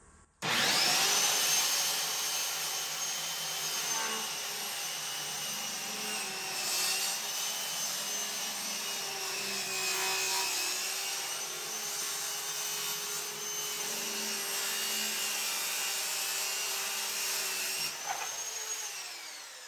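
Electric power saw cutting wooden wainscoting panels. The motor whine starts abruptly, runs steadily through the cut with a slight dip under load midway, then switches off near the end and winds down.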